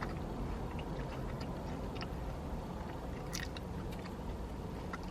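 Close-up chewing of fast food, with small wet mouth clicks and one brief crackle about three and a half seconds in, over a steady low rumble.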